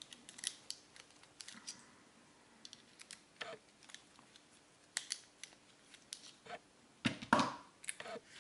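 Santul padlock being taken apart by hand to get at its core: scattered small metallic clicks and taps, with a louder clatter about seven seconds in.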